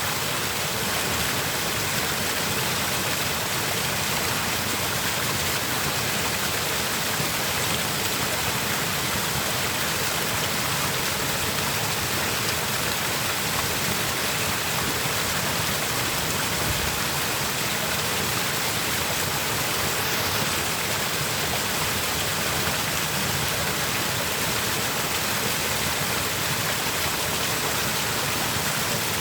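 Small mountain stream flowing: a steady, even rush and babble of water that does not change.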